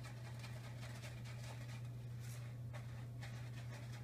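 Kitten scratching and digging in granular cat litter: a run of short, faint scratchy rustles, over a steady low hum.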